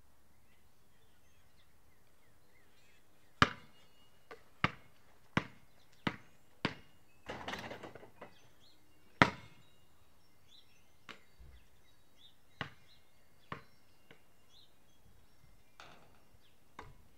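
Basketball bouncing on a concrete driveway: a run of sharp smacks that come faster and quieter over a few seconds, a brief rattle, one loud bounce, then a few scattered, softer bounces.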